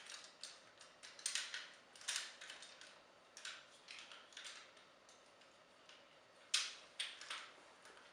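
Plastic parts of a Transformers action figure clicking and knocking as it is handled and transformed: a string of faint, irregular clicks, the sharpest few near the end.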